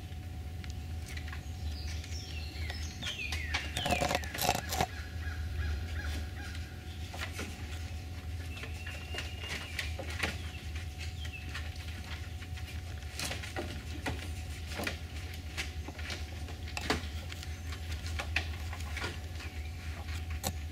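Scattered knocks and rattles from black bear cubs clambering on a wooden climbing frame inside a wire pen, loudest about four to five seconds in, with birds calling and a steady low hum.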